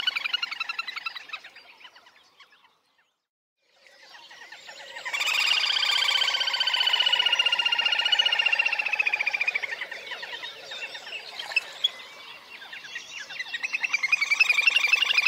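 Little grebe giving its rapid whinnying trill. The trill fades out about two seconds in and breaks off briefly. It starts again about four seconds in and runs loud for several seconds, sinking slightly in pitch, then dips and swells again near the end.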